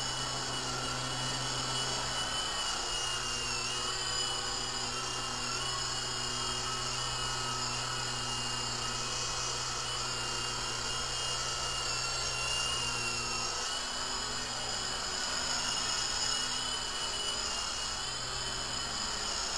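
Interceptor 052 RC helicopter's electric motors and rotors whining steadily in flight, the pitch wavering slightly as it is steered.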